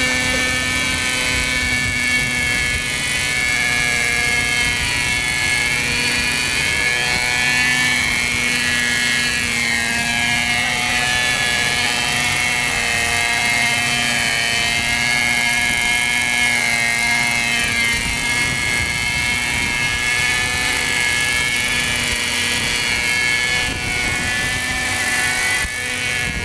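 Radio-controlled model helicopter running steadily, its engine and rotor whine wavering up and down in pitch as it lifts off and hovers low over the water.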